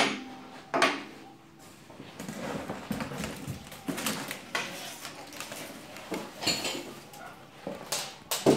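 Two blue anodised metal rear height-adjuster spring seats from a coilover kit set down on a tabletop with two sharp knocks, followed by irregular rustling and knocks as the cardboard box is handled, the loudest knock near the end.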